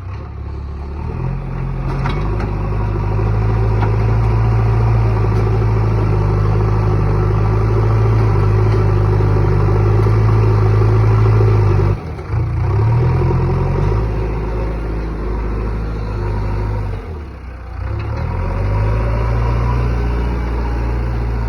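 JCB excavator's diesel engine running steadily under load. The engine note sags and shifts briefly twice, about halfway through and again a few seconds later, as the load changes.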